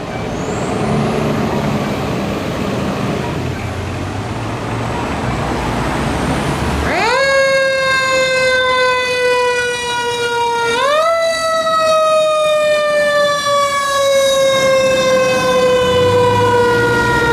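Pierce rescue fire truck's diesel engine rumbling as it pulls out. About seven seconds in, its mechanical siren winds up sharply and coasts slowly down in pitch, then winds up again about four seconds later and coasts down once more.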